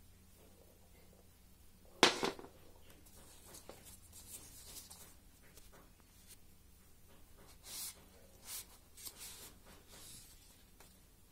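A sharp knock about two seconds in, then thin plastic wrapping rustling and crinkling in short bursts as it is slid off a computer mouse.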